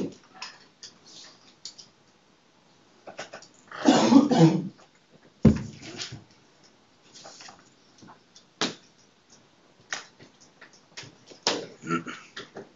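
Scattered room noise in a quiet classroom: small clicks and knocks, a short burst of voice about four seconds in, and a low thump a little after.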